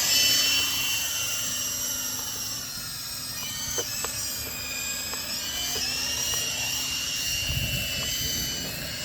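Toy RC helicopter's electric motor and rotors whining at high pitch after spinning up, the pitch wavering up and down as the throttle changes. A few faint clicks come around the middle, and a low rumbling noise joins in near the end.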